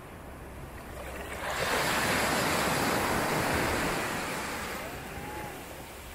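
Mediterranean sea waves breaking on a beach: one wave swells up about a second and a half in, holds for a couple of seconds, then fades as it washes out.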